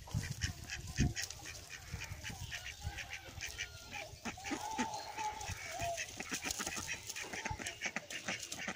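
Domestic waterfowl calling: many short calls in quick succession, with one longer held call about four seconds in.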